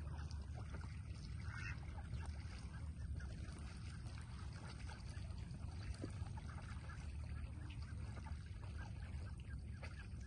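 Steady low rumble with faint background noise outdoors, unchanging throughout.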